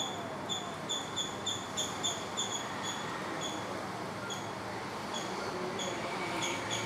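An animal chirping: short, high-pitched calls repeated two or three times a second, spacing out in the middle and quickening again near the end. Over the first few seconds a lower call that falls in pitch repeats about twice a second beneath them.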